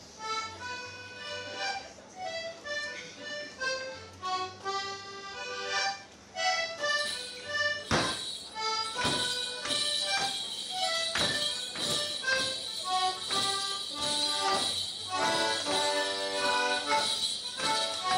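A lively morris jig tune played on a squeezebox, the melody alone at first. About eight seconds in the solo dancer starts: his leg bells jingle and his feet land on the floor roughly once a second, in time with the tune.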